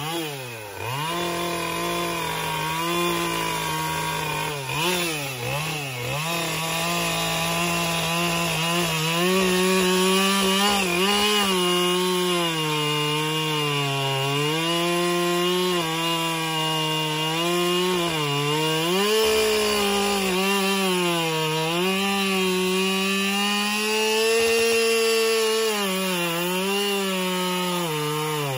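Chainsaw engine running at high speed while carving into a log. Its pitch sags repeatedly as the bar bites into the wood and climbs again as the cut is eased off.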